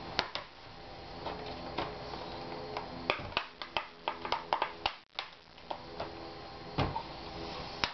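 Plastic clips of an Asus X54C laptop's screen bezel snapping loose as a fingernail pries around the bezel edge: scattered sharp clicks, with a quick run of them in the middle.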